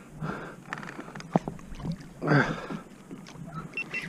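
Water splashing and scattered knocks and clicks around a plastic fishing kayak as a hooked snook is played on rod and reel.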